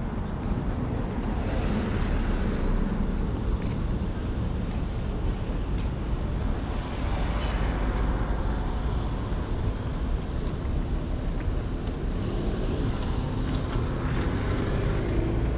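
Street traffic noise, a steady rumble that swells as vehicles pass, with a few brief high squeaks in the middle.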